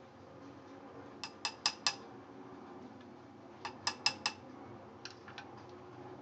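Small hard clicks of a utensil knocking against a container: two quick runs of four, then a few fainter ones.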